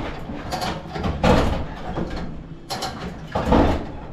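Rough mechanical scraping and clanking from heavy work, with louder surges about a second in and again about three and a half seconds in.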